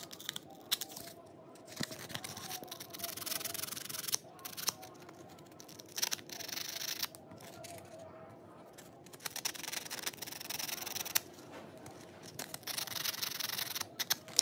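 A small nickel connector strip rubbed by hand against P240 sandpaper, in several short spells of scratchy rubbing with a few light clicks between them. This scours off oxidation so that the solder will take.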